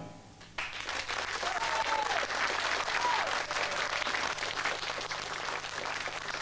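Studio audience applauding at the end of a song. The clapping starts about half a second in, with a couple of short shouts in it.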